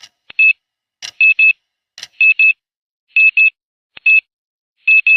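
Countdown timer's alarm going off at zero: high-pitched electronic beeps in quick pairs, about one pair a second. They take over from the last clock ticks in the first couple of seconds.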